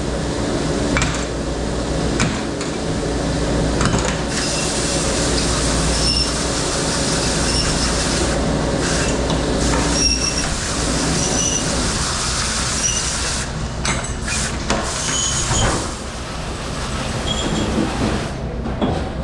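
Dish room of a commercial kitchen: a steady machine drone with knocks and clatter of dishes, and short high squeaks recurring every second or two through the middle.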